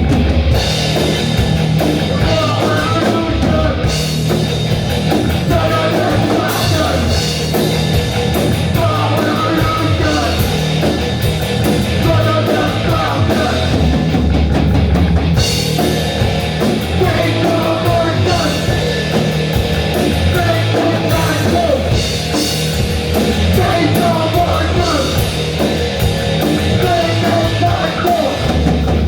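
A rock band playing loud and raw in a rehearsal room: drum kit pounding under heavy guitars and bass, running without a break.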